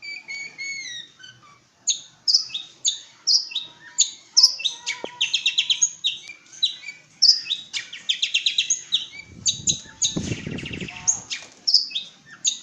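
Long-tailed shrike (pentet) singing: rapid bursts of sharp chattering notes and quick trills, with a short low buzzing rattle near the end.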